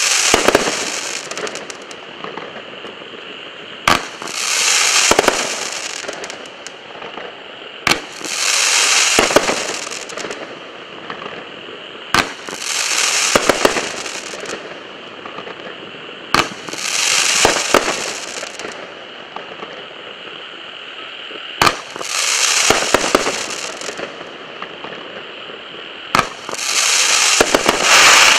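A5278 Big Whale firework firing shots one at a time, about every four seconds. Each shot is a sharp launch thump, followed about half a second later by a dense, hissing burst high in pitch that lasts a second or two.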